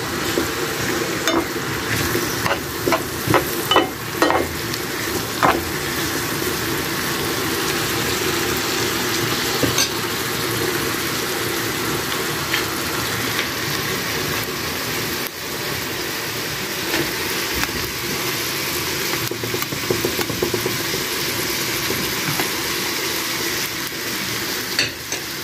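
Diced carrots sizzling as they fry in oil in a frying pan, with a spatula scraping and tapping against the pan several times in the first few seconds.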